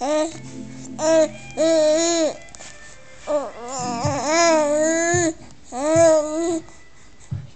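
Young baby cooing and babbling: a string of about six drawn-out vowel sounds, high-pitched and rising and falling, with short pauses between them and the longest coo near the middle.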